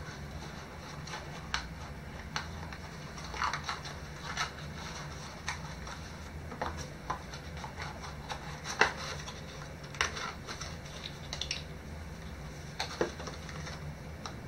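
Hands handling small boxed accessories: scattered clicks, taps and short rustles of cardboard, paper sleeve and plastic, the loudest a sharp knock about nine seconds in, over a steady low hum.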